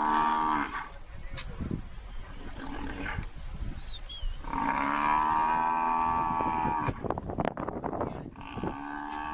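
Cape buffalo bellowing in distress while a lioness bites its muzzle: three drawn-out moaning calls, a short one at the start, a long one about halfway through and another near the end. Short crackling noises come between the last two.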